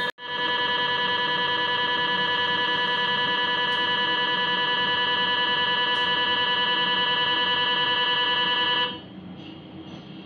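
GE MRI scanner's gradient coils buzzing during a LAVA dynamic acquisition: a loud, steady, finely pulsing buzz made of several tones at once. It breaks off for an instant just after the start, then stops abruptly about nine seconds in as the acquisition phase ends.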